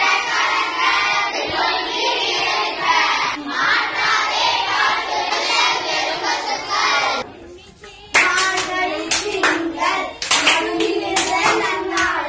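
A group of schoolgirls chanting Tamil devotional verses in unison. After a brief drop about seven seconds in, rhythmic hand clapping starts, about two to three claps a second, with children's voices singing along.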